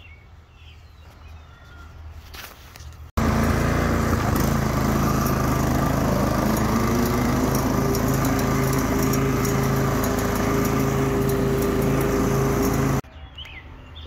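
Toro TimeMaster walk-behind lawn mower engine running steadily under load, starting abruptly about three seconds in and cutting off abruptly near the end, after a few seconds of faint background.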